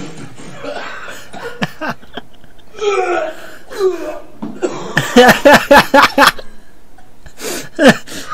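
Laughter, loudest in a run of quick pulsing bursts a little past halfway and again near the end, with other short breathy vocal sounds before it.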